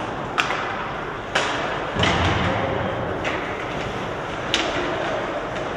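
Ice hockey play on the rink: five sharp clacks of sticks on the puck, one about two seconds in with a deeper thud of the puck or a player hitting the boards, over a steady rink hum.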